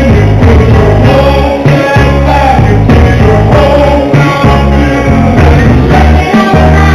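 Loud dance music with a sung vocal over a steady beat.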